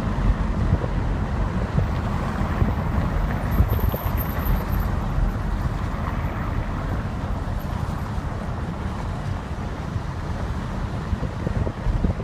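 Wind buffeting the microphone over a steady low rumble of vehicle and street traffic noise.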